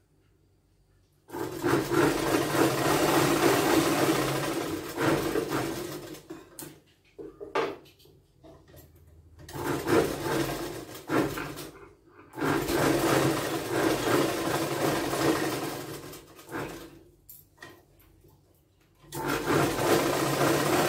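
Electric sewing machine with an external motor stitching fabric in stop-start runs. It starts about a second in and makes four longer runs of a few seconds each, with short spurts between them as the fabric is guided under the needle.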